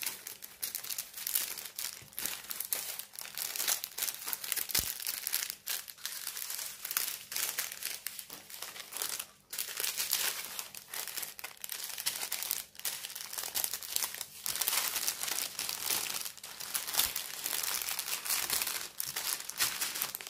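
Clear plastic packaging being handled and crinkling, an uneven crackle that keeps going as the bags and film are shifted and folded.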